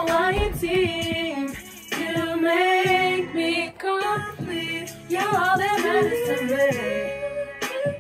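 A girl singing a pop melody into a handheld microphone over backing music, in phrases of a second or two with short breaks between them.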